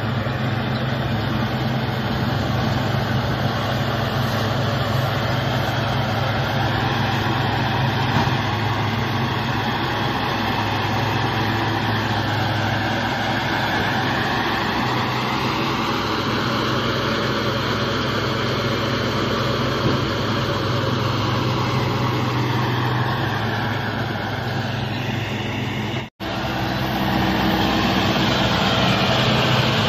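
Deutz-Fahr 100 hp tractor's diesel engine running steadily while pulling a Maschio Extreme 266 HTI round baler at work. The pitch slowly rises and falls in the middle. Near the end the sound breaks off for an instant and comes back a little louder.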